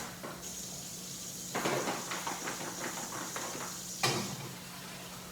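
A metal serving tray being washed under a running kitchen tap, with hissing water, dish clatter and a sharp knock about four seconds in.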